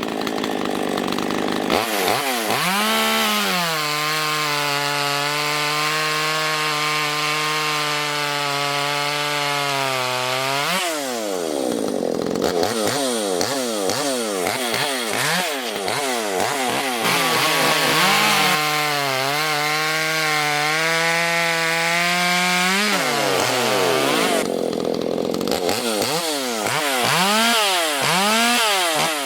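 Ported 42cc two-stroke chainsaw running at full throttle, its pitch sagging slightly under load as the chain cuts wood. The throttle is let off twice, about ten seconds and about twenty-three seconds in, and the engine is revved up again each time. It is blipped up and down near the end.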